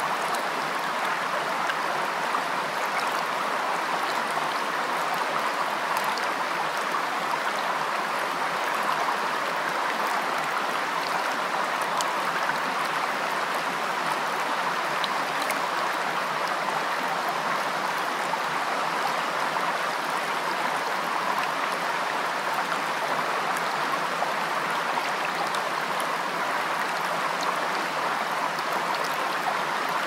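A shallow rocky stream running steadily over stones and a small cascade: an even, unbroken water noise.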